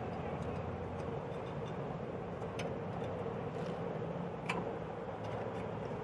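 Light metallic clicks and taps as a small pin is fitted into the slotted steel rail of a gas stove's frame, the sharpest two about two and a half and four and a half seconds in, over a steady low background hum.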